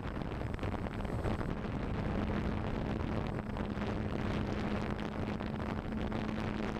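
Small camera helicopter's rotors humming steadily, with wind rushing over the microphone.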